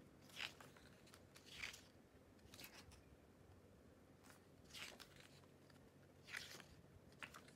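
Faint rustling of a photo book's paper pages being handled and turned by hand, a handful of short swishes a second or so apart.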